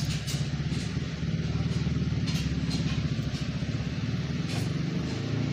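An engine running steadily with a low, throbbing drone and a few faint clicks.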